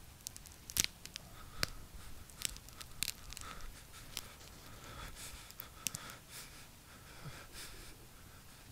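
Faint, irregular clicks and crackles over a low hiss, with a few sharper snaps about a second in and again near the middle.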